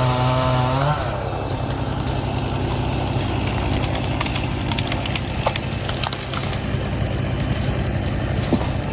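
Heavy diesel engine running steadily, with a few light knocks. A pitched tone with a strong overtone stack sounds over it and cuts off about a second in.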